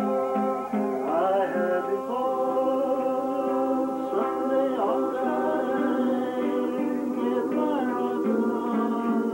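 Live music: a plucked string instrument, laid flat on a table and played by hand, rings out sustained chords and notes, with a voice singing along in places.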